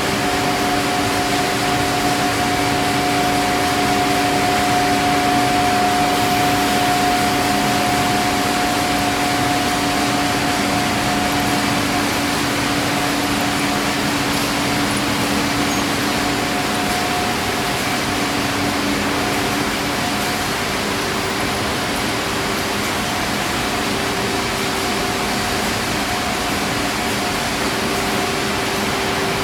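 Steady machinery din of a PET bottle filling and packing line: conveyors, drives and fans making a constant hiss with several steady humming tones. One of the hums fades out about halfway through.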